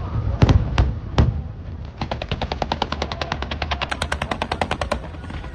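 Fireworks going off: a few loud bangs from bursting shells, then from about two seconds in a rapid, even run of sharp pops, about ten a second, lasting some three seconds.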